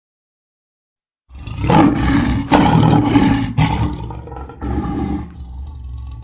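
Lion roaring: after a second of silence come several loud, rough roars in a row, followed by a quieter roar and lower rumbling toward the end.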